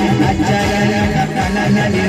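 Timli dance music from a band: a steady fast drumbeat under held melody notes.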